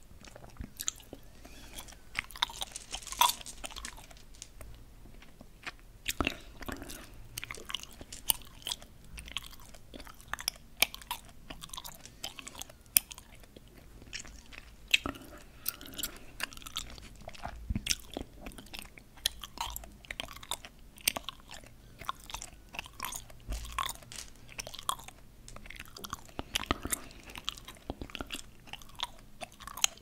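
Hard candy-coated chewing gum pieces clicking and tapping against one another as fingers pick them from a pile and set them down in rows, in quick irregular clicks.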